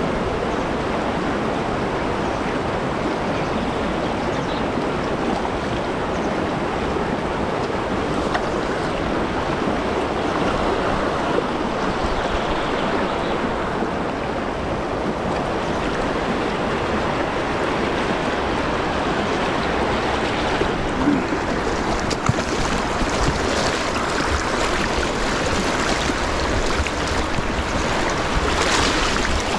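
River water rushing over a shallow rocky riffle: a steady rush of flowing water, with a couple of small knocks about two-thirds of the way in.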